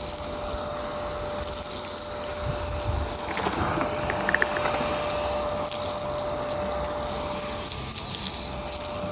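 Miele Complete C2 canister vacuum cleaner running steadily with a constant whine, crackling as it sucks up grit and debris from a street surface, with a louder burst of rattling about halfway through.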